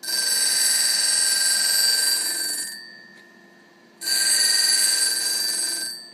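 A grinding wheel on a CM06 cutter grinder grinding a three-flute countersink: two ringing grinding passes of about two and a half seconds each, each starting suddenly and tapering off, with a faint motor hum between them.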